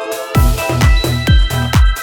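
Electronic dance music as a soundtrack. Sustained tones give way about a third of a second in to a heavy kick-drum beat, about two kicks a second.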